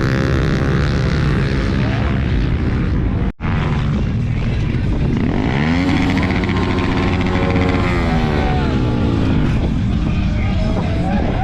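Vehicle engine revving, its pitch climbing about five seconds in, holding, then dropping away, with a sudden break about three seconds in where the sound cuts to another clip.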